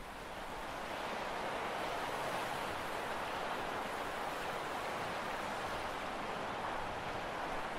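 Steady rushing noise of sea and wind at a harbour breakwater, swelling slightly in the first second, with no distinct engine note or other event.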